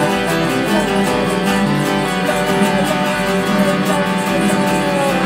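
A band playing: guitar strummed in a steady rhythm under sustained chords, with a higher melody line gliding up and down in pitch.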